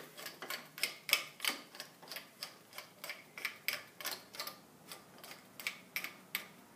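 Cartridge puller being hand-screwed onto a Delta 1300/1400 shower valve body, giving a run of light metal clicks about three a second that fade toward the end.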